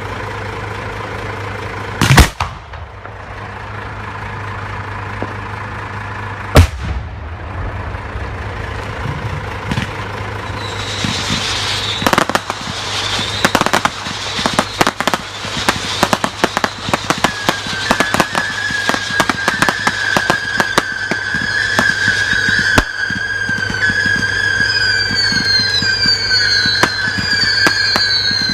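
Fireworks display: two single loud bangs about two and six seconds in. From about ten seconds in, a thickening barrage of crackling and popping follows. In the last ten seconds a wavering whistle and repeated falling whistles sound over it.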